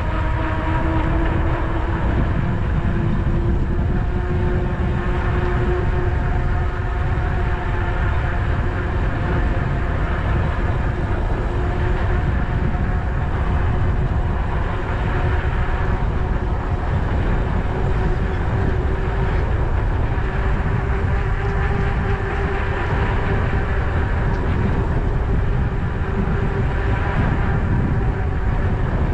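Electric bike riding along with its motor whining in a steady tone that rises slowly in pitch, over heavy wind rush on the action camera's microphone and tyre noise on asphalt.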